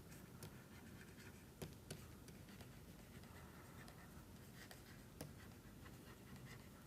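Near silence with faint pen-writing sounds: a few light taps and scratches of a pen, the clearest about a second and a half in and again about five seconds in.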